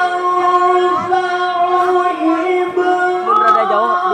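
A man's voice in melodic Quran recitation (tilawah), holding one long, high, steady note without words. A second, lower voice comes in about three seconds in.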